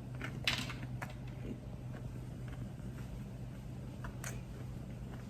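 A person chewing a sauce-dipped chicken nugget: a few short soft mouth clicks and smacks, the clearest about half a second in, over a steady low room hum.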